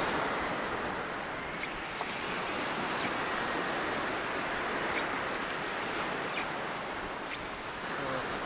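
Steady wash of sea surf breaking on a sandy beach, with a few faint light ticks scattered through it.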